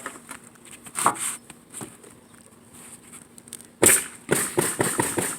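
Sheet-metal pipe flashing being handled and set in place on the shingles: one sharp knock about a second in, then a loud clatter near the end followed by a quick run of sharp knocks.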